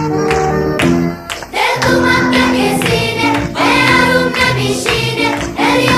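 Background music: an upbeat song with plucked-string accompaniment, and singing voices coming in after a short break about one and a half seconds in.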